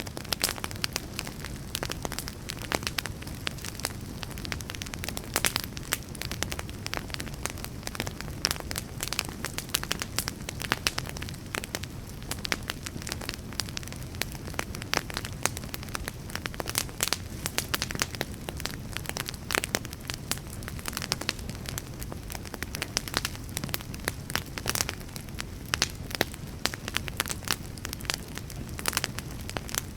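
Wood fire crackling: a dense, irregular run of snaps and pops from burning logs over a steady low rumble of the flames.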